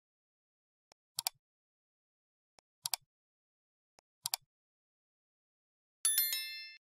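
Three mouse-click sound effects about a second and a half apart, each a quick double click, then a short bright bell chime near the end: the clicks of an animated like-and-subscribe button and the ding of the notification bell.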